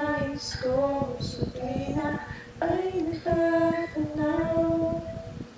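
A woman singing a slow melody, holding long notes in short phrases with brief breaks between them.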